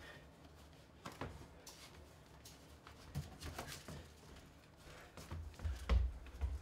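Clothing rustling and small handling clicks as a person hurriedly dresses and gathers things, then a few heavier footfalls near the end as he hurries off.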